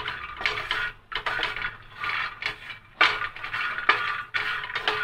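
Wooden spatula scraping and stirring fox nuts (phool makhana) around a steel kadhai as they dry-roast in a little ghee, in a run of scraping strokes about once a second.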